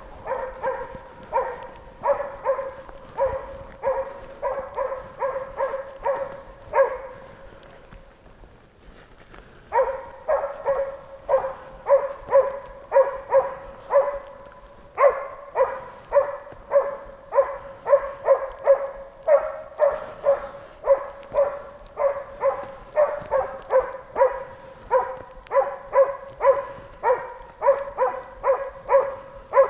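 East Siberian Laika barking in a steady, rhythmic series of about two barks a second, breaking off for a couple of seconds about a quarter of the way in and then resuming. Bay barking of a tracking dog that has found and is holding the wounded wild boar.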